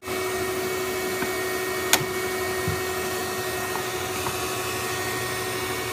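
Bee vacuum running steadily, a loud even rush with a few held whining tones, its hose sucking up honey bees from beneath a floorboard. A single sharp click about two seconds in.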